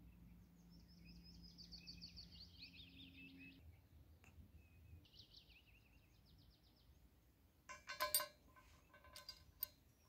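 Faint songbird trills twice, each a fast run of repeated high notes lasting a second or few. About eight seconds in, small titanium pen parts clink sharply against metal with a short ring, followed by a few lighter clicks near the end.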